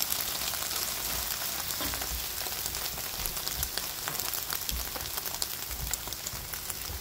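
Scrambled eggs frying in hot oil in a stainless steel skillet: a steady sizzle with many small crackles and pops.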